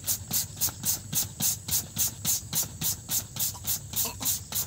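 Handheld julienne grater shredding a firm fruit or vegetable: quick, even rasping strokes, about three or four a second.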